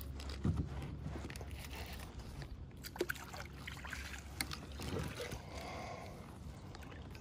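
Water splashing and sloshing around a plastic fishing kayak, with a few light knocks, while a hooked fish is reeled in on a baitcasting reel.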